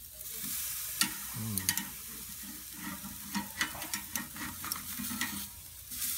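Pork medallions sizzling on a hot grill grate at about 450 degrees as they are flipped over, with a steady hiss and a scatter of sharp clicks from the turning utensil against the grate and meat.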